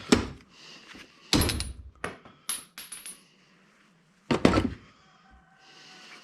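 Several sharp metallic knocks and clinks, some with a brief high ring, from a paintball marker being whacked to free its stuck bolt. The loudest blows come just after the start and at about four and a half seconds, with lighter clinks between.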